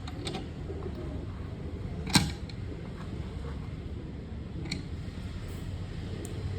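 A sharp click about two seconds in, with a few fainter ticks, over a steady low rumble.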